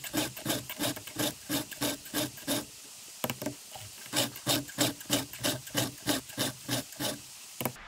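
Round chainsaw file rasping across the cutters of a Stihl chainsaw chain, held in a 30-degree filing guide: steady hand strokes at about three a second, with a short pause about three seconds in. The chain is being sharpened by hand.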